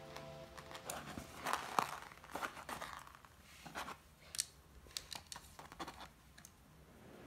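Plastic LEGO Technic parts being handled and fitted together: irregular small clicks, taps and scrapes as pieces are picked up and pushed into place. Busier in the first half, sparser toward the end.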